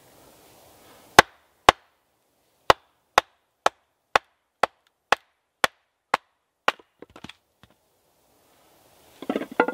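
A wooden baton striking the back of an axe head set in a knotty birch log, battoning it down to split the log: eleven sharp knocks about twice a second, then a few faint cracks. A short clatter near the end.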